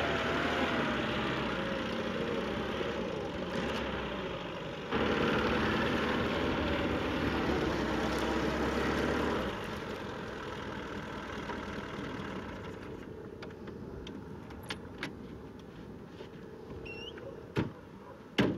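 Lada (Zhiguli) sedan engine running as the car drives over rough dirt ground, louder for a few seconds from about five seconds in, then fading away. Near the end there are a few faint ticks and two sharp knocks.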